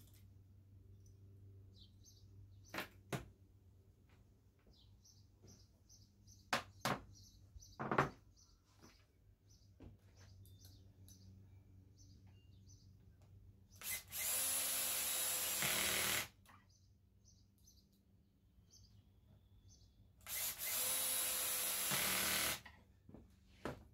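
Ridgid cordless drill driving pocket-hole screws into poplar stiles and rails: two steady runs of about two seconds each, several seconds apart. Before them come a few sharp knocks from handling the wood and tools.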